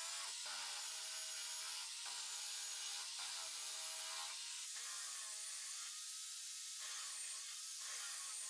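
Electric hand drill, mounted in a drill press stand, running as its bit bores into plywood, with a steady high cutting hiss. The motor's whine sags in pitch under load and breaks off and starts again several times as hole after hole is drilled.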